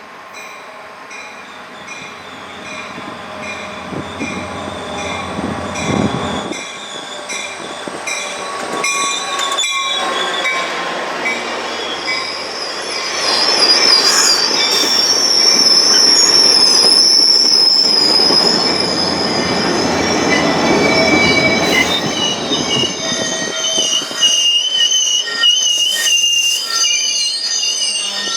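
A train passing, its steel wheels squealing on the rails, getting louder through the first half, with a high wavering squeal that sets in about halfway through.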